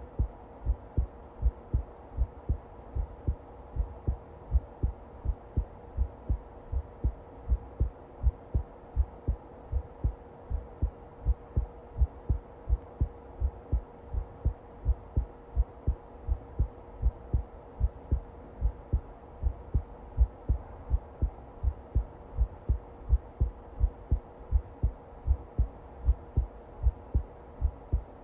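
Heartbeat: steady, regular low thumps, about two a second, with a faint steady hum underneath.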